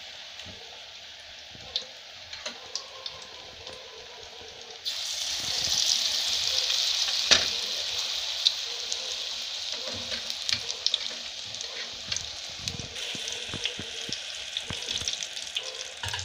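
Gram-flour-battered cauliflower florets deep-frying in hot oil in a kadai: a steady sizzle dotted with crackling pops. About five seconds in the sizzle jumps suddenly louder, as more battered pieces go into the oil, and then eases slowly.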